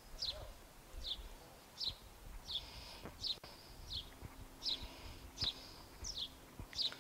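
A songbird repeating a short, high, falling chirp, about ten times at an even pace, over a faint low background rumble.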